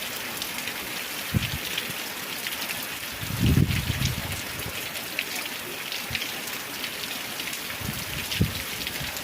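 Heavy rain falling steadily, with many individual drops audible, and a few short low thumps, the loudest about three and a half seconds in.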